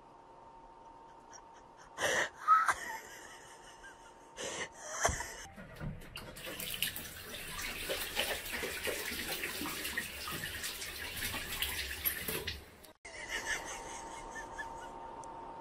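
A few short, loud sounds about two to five seconds in. Then a bathroom tap runs steadily into a washbasin for about seven seconds and cuts off suddenly.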